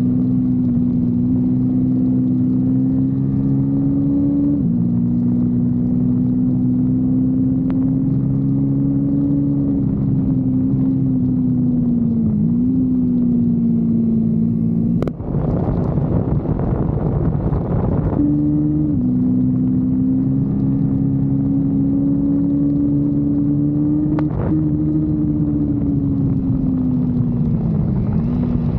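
Kawasaki Versys-X 250's parallel-twin engine running under load while riding, a steady engine note with small shifts in pitch. About halfway through, a click is followed by some three seconds of rushing noise in place of the engine note before the engine note returns.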